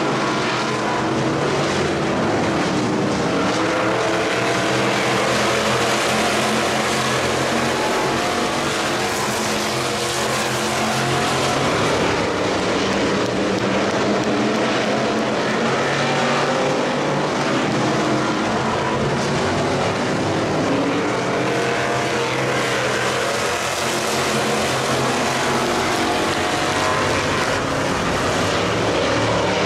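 A pack of factory stock dirt-track race cars running at racing speed, their engines blending into one steady, loud sound.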